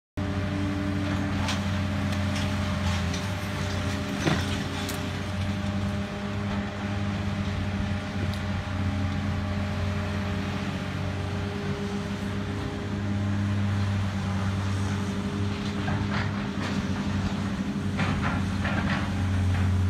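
Caterpillar 330D hydraulic excavator's diesel engine running steadily during demolition work, with scattered knocks and clatter of masonry debris, several of them near the end.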